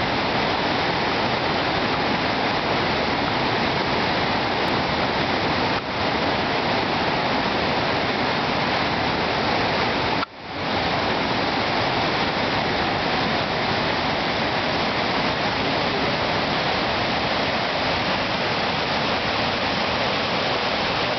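Steady rushing of a whitewater rapid on the Colorado River, with a sudden brief dropout about ten seconds in.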